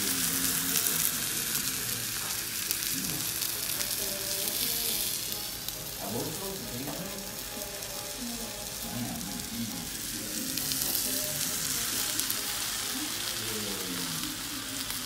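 T-bone steak sizzling on a hot serving plate: a steady hiss, with faint voices underneath.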